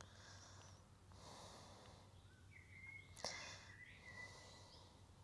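Near silence with a few faint breaths and one soft click a little over three seconds in.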